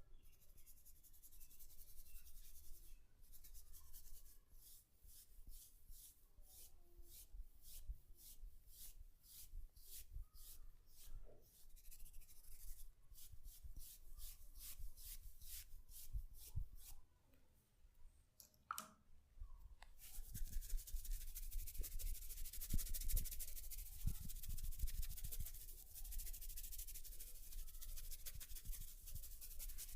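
Scratchy rubbing strokes through hair and over the scalp during a head massage, about two to three strokes a second. After a short lull, about two-thirds of the way in, they give way to continuous rubbing.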